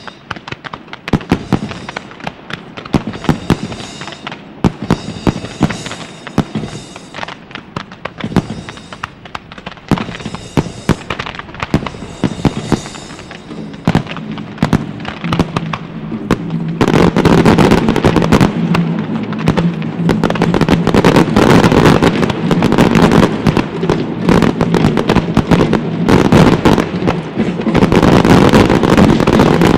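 Aerial fireworks bursting in quick succession, with stretches of hiss between the bangs. From a bit past halfway they build into a dense, continuous barrage of explosions. Music plays underneath.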